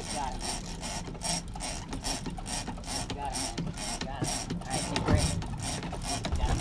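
Big-game fishing reel being cranked under heavy load, its gears clicking in a steady rhythm of about two to three pulses a second, with a single louder knock about five seconds in.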